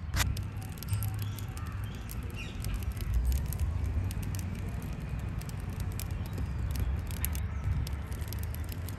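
Light clicks and scrapes of a spoon against a ceramic bowl as thick jaggery syrup is spooned out into a metal pot of water, over a steady low rumble.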